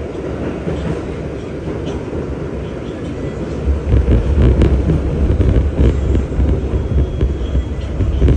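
New York City Subway train (the 1 line) running on the track with a steady rumble that grows heavier and louder about halfway through.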